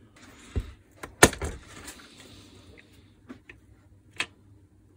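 Handling noises from a cordless drill being taken apart: a rustling scrape, one sharp click just over a second in, then a few lighter knocks as the motor and gearbox are worked out of the plastic housing.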